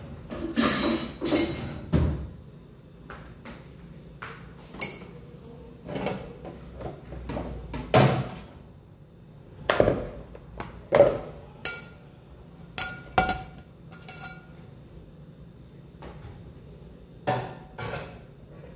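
Dishes, pots and metal kitchenware knocking and clinking as they are handled at a kitchen counter: a series of separate knocks, a few in the middle followed by a brief metallic ring.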